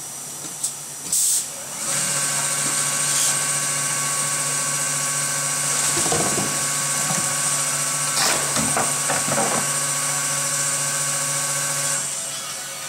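Urea filling machine running steadily for about ten seconds as it fills a 10-litre jerrycan, a hum with several fixed tones that starts about two seconds in and cuts off near the end when the fill stops. A short hiss of air about a second in.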